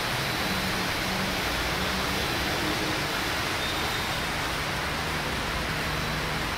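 Steady rushing noise of traffic on a flooded street: vehicles driving through standing floodwater, with a low engine hum that comes and goes.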